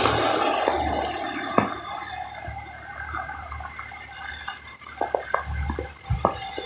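Tyres hissing on a wet, slushy road as a vehicle passes and fades away over the first couple of seconds. After that comes quieter street ambience with scattered small clicks and taps.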